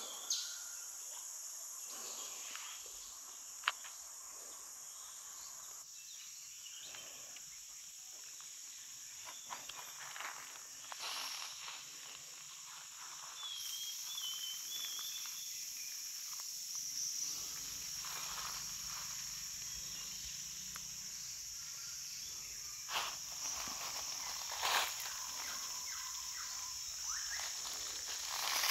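Steady high-pitched drone of insects, with a short bird chirp about fourteen seconds in and a few scattered rustles and knocks.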